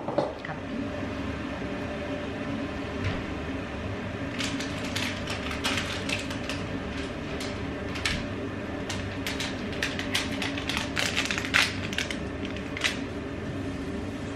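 Kitchen handling noise while making coffee: a run of small clicks and knocks, as of cupboard doors, cups and utensils being handled, coming mostly from about four seconds in, over a steady low background hum.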